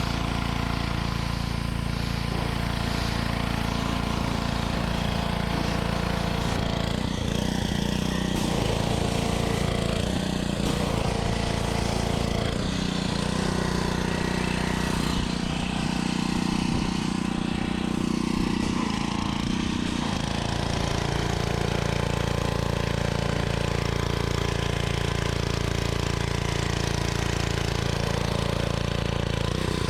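A small engine running steadily, its tone shifting between about 7 and 20 seconds in.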